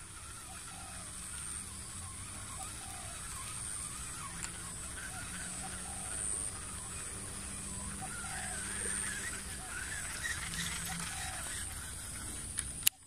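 Outdoor ambience: a steady high-pitched insect drone that swells and fades, with scattered short bird calls throughout and a sharp click near the end.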